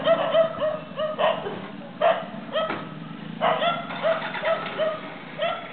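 A tiny dog yelping: about a dozen short, sharp high cries in irregular bursts, bunched most closely a little past the middle.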